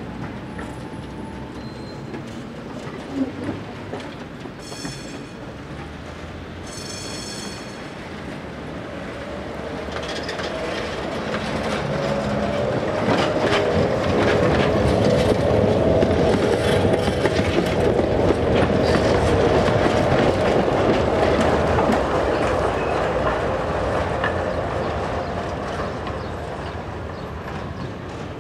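An articulated electric tram passes close by: its wheels clatter over the rail joints and it gives a steady whine. The sound builds to a peak in the middle and then fades as the tram moves away. Earlier come two short horn-like toots, about two seconds apart.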